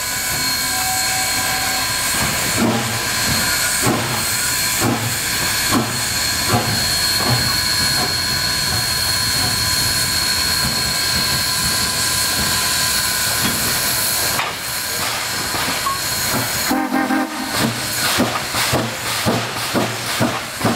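2-8-2 Mikado steam locomotive hauling passenger coaches, with a steady hiss of escaping steam and the beat of its exhaust. About seventeen seconds in, the beat turns loud and rhythmic, about two pulses a second, as the engine nears.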